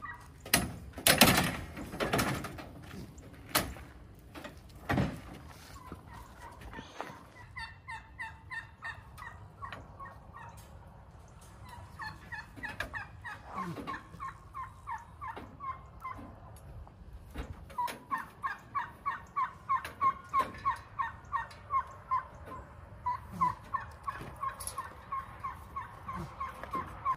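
A bird calling a long series of short, evenly repeated notes, about two a second, faint at first and louder in the second half. A few loud knocks come in the first seconds.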